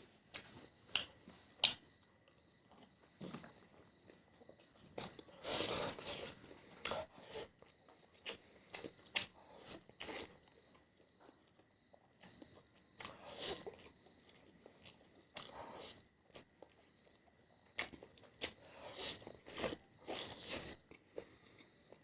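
Close-miked eating sounds: chewing and biting with wet mouth clicks, rising to several louder bursts of chewing at intervals.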